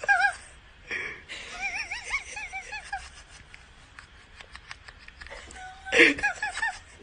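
A small animal giving short, high, wavering chirp-like calls: one near the start, a quick run of them a second or two in, and a louder burst with more calls near the end.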